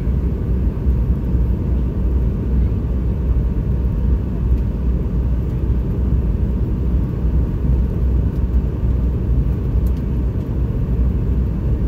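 Steady low cabin rumble inside a Boeing 717 on approach to landing: airflow noise and its two rear-mounted BR715 turbofans, heard from a window seat over the wing.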